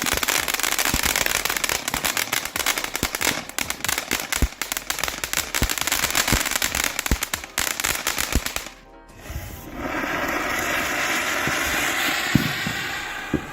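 Ground fountain fireworks crackling densely with rapid sharp pops. After a short break, a single fountain gives a steady hissing spray, with a couple of pops near the end.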